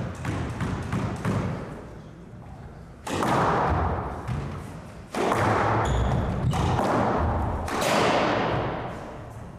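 Squash rally: repeated sharp thuds of the ball off racket and walls, footsteps and a brief shoe squeak on the wooden floor, with two longer stretches of louder rushing noise that start suddenly about three and five seconds in.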